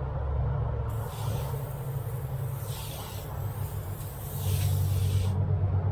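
Cleaning solution hissing out of a soft-wash spray nozzle, starting about a second in and cutting off near the end. A steady low engine hum runs underneath.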